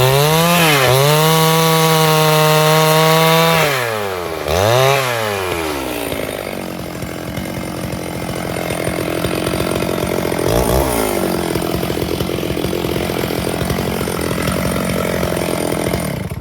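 Stihl 651 chainsaw running at high revs, the engine note dipping briefly twice in the first five seconds, then running lower and rougher as it cuts through wood, with a short rev-up near the middle. The sound stops abruptly at the end.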